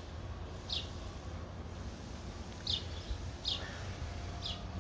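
A small bird chirping: four short, high, falling chirps spaced a second or so apart, over a low steady rumble.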